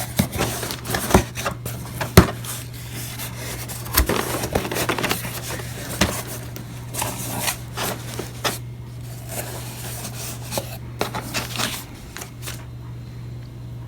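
A cardboard shipping box being opened by hand: irregular scrapes, rubbing and sharp knocks as the tape is cut and the flaps and packaging are handled. A steady low hum runs underneath.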